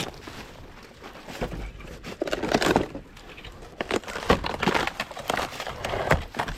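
Irregular crunching and crackling of dry leaf litter and twigs underfoot, with a few sharp snaps, busiest through the middle and latter part.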